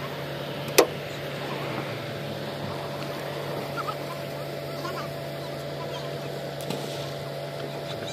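An engine running steadily with a low, even hum, while a boat is hauled onto its trailer; a single sharp knock sounds about a second in, with a few faint clicks later.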